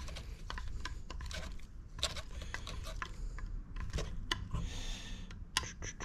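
Hand screwdriver driving a screw through a steel M1917 rifle buttplate into a wooden Thompson buttstock: a run of irregular small clicks and scraping creaks.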